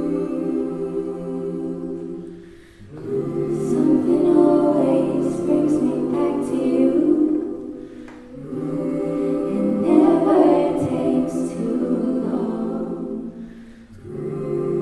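A cappella vocal group singing held chords, in two swelling phrases that each rise and fade, with a new chord coming in near the end.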